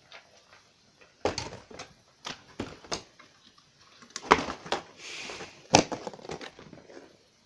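A Notifier NBG-12LX fire alarm pull station being handled: irregular sharp plastic-and-metal clicks and knocks, with a brief rustle about five seconds in.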